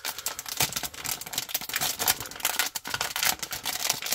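Plastic trading-card multipack pouch crinkling and crackling as its sealed top is peeled apart by hand, a dense run of irregular crackles.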